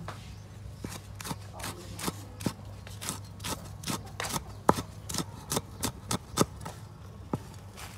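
Cleaver chopping red chilies and garlic on a wooden chopping board: an irregular run of sharp knocks, about three a second.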